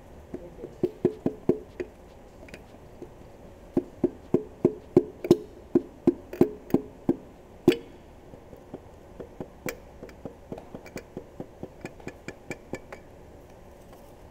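Soft-faced hammer tapping on a connecting rod and piston in a Mopar Hellephant engine block, driving the piston down the cylinder bore during rod and piston removal. A short run of sharp, ringing taps comes first, then a longer run at about three taps a second, then lighter taps near the end.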